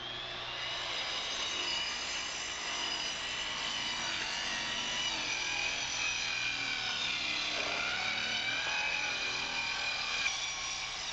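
Circular saw running and cutting across the ends of cedar decking boards along a snapped line, its whine wavering slightly as the blade loads in the wood.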